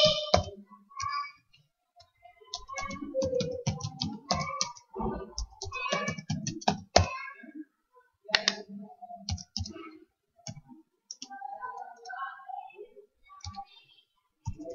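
Keys being typed on a computer keyboard: irregular runs of sharp keystroke clicks with short pauses between them.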